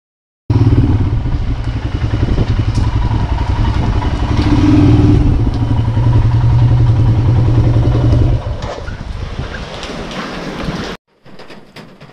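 Motorcycle running while being ridden: a loud, steady low rumble with road noise. It starts abruptly, quietens about eight seconds in, and cuts off sharply near the end.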